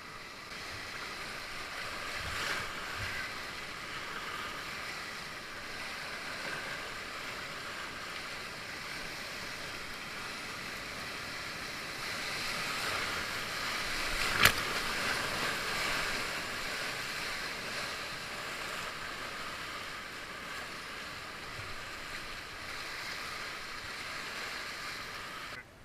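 Whitewater rushing and splashing around a kayak running a rapid's wave train, a steady wash of water noise, with one sharp knock about halfway through.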